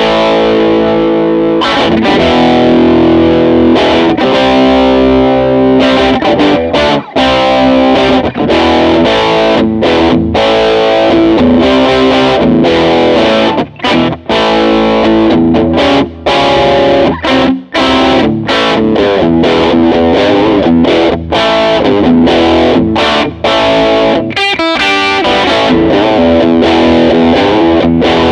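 Harley Benton SC-DLX Gotoh electric guitar played through a Hotone Ampero One amp modeller on a Mesa Boogie Mark IIC+ preset: chords and riffs, broken by a few brief stops.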